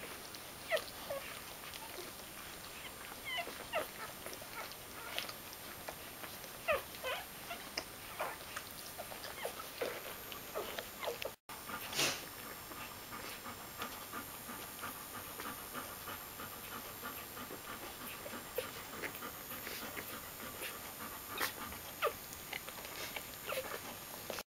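Day-old newborn puppies squeaking and whimpering in short, high little cries, scattered irregularly throughout, while they nurse from their mother.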